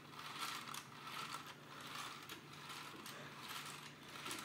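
Plastic LEGO gears and axles whirring and clicking as the model plane's propeller mechanism spins, a steady rattling run.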